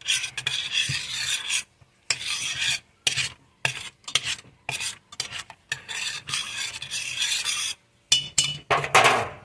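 A spoon scraping and stirring around the bottom of a small stainless-steel saucepan of melted butter, in a string of strokes with short gaps between them, the loudest near the end.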